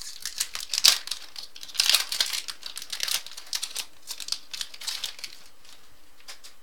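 Trading card pack wrapper being torn open and crinkled, a dense crackle with its loudest bursts in the first two seconds, dying away about five seconds in.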